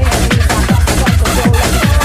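Electronic dance music in a techno style, with a steady four-on-the-floor kick drum and a synth lead melody over it.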